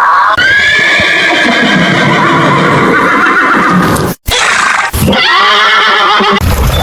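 Horse neighing twice: a long whinny, then a brief gap about four seconds in and a second, shorter neigh.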